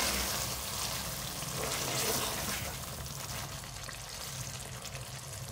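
Beef curry frying gently in oil in a metal pot, with a steady sizzle and a wooden spatula stirring through the thick masala as poppy seed paste is mixed in. The oil is separating from the masala, the bhunai stage of the cooking.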